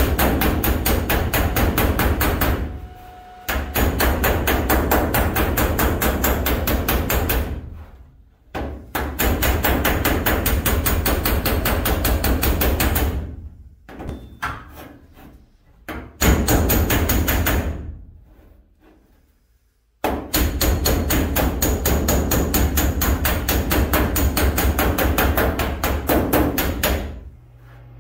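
A body hammer striking the sheet-steel lower body panel of a 1967 GMC van in rapid runs of blows with short pauses between them. This is hammer welding: fresh TIG weld seams are being crushed flat and planished while they are still hot.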